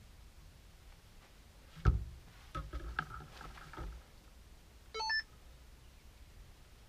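A sharp knock about two seconds in, then a second or so of smaller knocks and rustling as gear is handled inside a hunting blind; about five seconds in, a short electronic beep of a few quick stepped tones.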